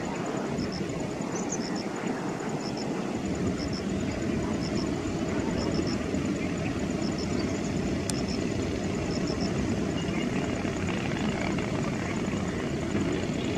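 Distant, steady rumble of an Airbus A321-211's CFM56 jet engines as the airliner taxis and lines up on the runway; the deepest part of the rumble fills in about three seconds in. A small double chirp repeats about once a second above it.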